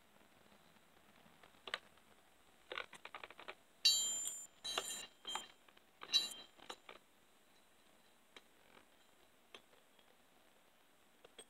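Steel saw chain and small metal parts clinking and rattling as they are handled, with a quick run of light clicks and a few sharper metal-on-metal clinks that ring briefly in the middle, then a few lone ticks.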